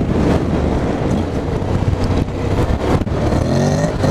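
Honda X-ADV 2021's 745 cc parallel-twin engine pulling hard while riding off-road, over a steady rushing noise. The revs climb in a rising pitch near the end.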